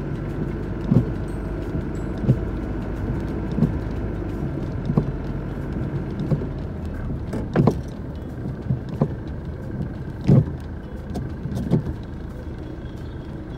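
Steady engine and road noise inside a moving car, with a short knock repeating evenly about every 1.3 seconds.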